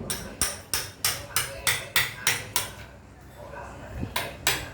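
A quick run of sharp knocks, about three a second, then a short pause and two more strikes near the end, as of something hard tapped repeatedly.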